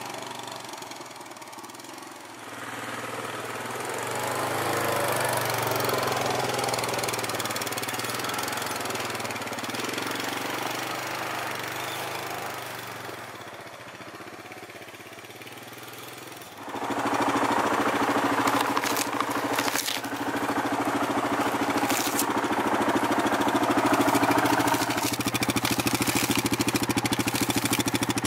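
Yamaha Grizzly 700 ATV's single-cylinder engine working along a trail, fading and building again as the quad moves away and comes back. About two-thirds of the way in it becomes loud and steady, idling right beside the microphone, with a few sharp clicks.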